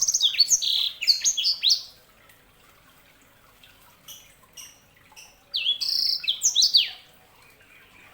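Yellow-fronted canary (sanger) singing. A fast twittering phrase of high chirps and downward-sweeping notes ends about two seconds in, two short chirps follow around four seconds, and a second fast phrase comes from about five and a half to seven seconds.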